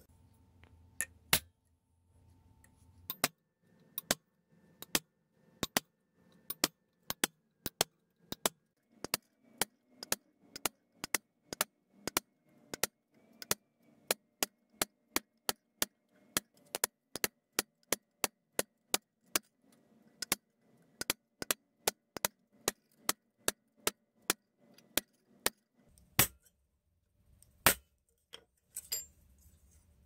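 Hammer striking a steel texturing punch into a silver sheet on a steel bench block, giving sharp metallic taps at a steady pace of just under two a second. A couple of taps open, the steady run starts about three seconds in, it stops a few seconds before the end, and a last strike or two follow.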